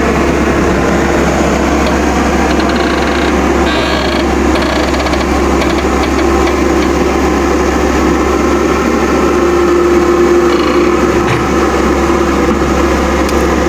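Heavy machinery's engine running steadily while working to pull out a large tree root, with short bursts of metallic clinking between about two and five seconds in.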